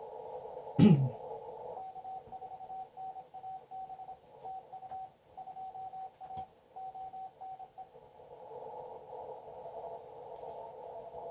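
Amateur radio receiver audio through a narrow CW filter: a hiss of band noise with a Morse code signal keyed on and off for about six seconds, then a fainter station sending near the end. One short, loud thump about a second in.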